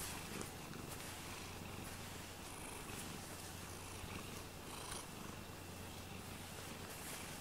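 Domestic cat purring steadily while being stroked.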